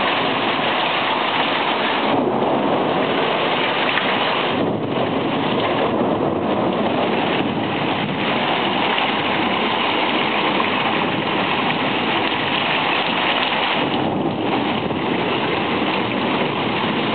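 Heavy thunderstorm downpour: rain pouring steadily onto a paved patio and the surrounding yard.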